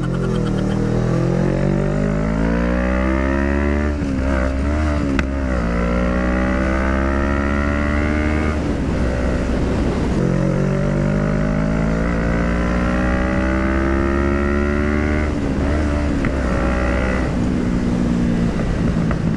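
CFMoto 400NK's parallel-twin engine accelerating hard up through the gears: its pitch rises steadily, breaks at each shift, and rises again, about four pulls in all. The engine pulls cleanly without bogging on new NGK iridium spark plugs.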